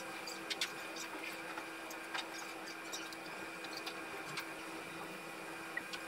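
Small metal model parts and hand tools being picked up and set down on a table: scattered light clicks and taps, the sharpest pair about half a second in, over a steady background hum.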